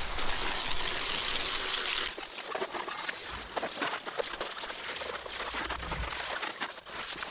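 Water from a garden hose spraying onto a salt spreader: a steady hiss for about two seconds, then irregular splashing and dripping.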